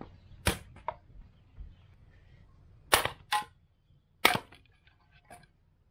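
Long chopping blade striking sticks of wood on a stump to split them into kindling: a run of sharp cracks, four loud ones and a few lighter knocks between them.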